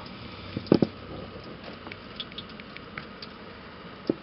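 Water draining and pattering out of the Mercruiser 5.0L's opened block and exhaust drain plugs as the engine is emptied for winterizing, with a dull knock about a second in.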